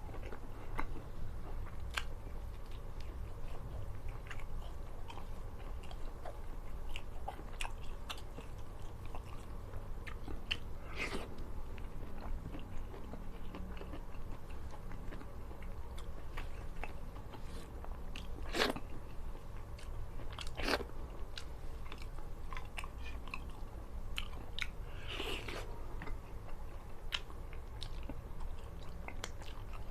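A person chewing and biting food close to the microphone, with many small irregular crunches and wet clicks and a few louder crunches scattered through.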